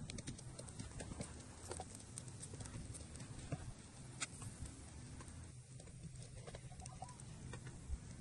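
Faint, irregular crackles and pops from fish on skewers grilling over hot ash and embers, over a low steady rumble.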